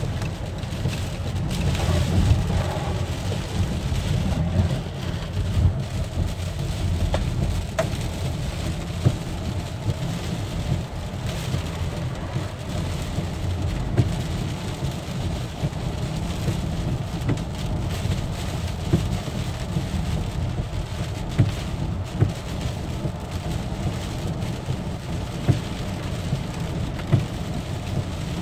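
Heavy hurricane rain beating on a moving car, with a steady low rumble of road and wind noise heard from inside the cabin and scattered sharper taps throughout.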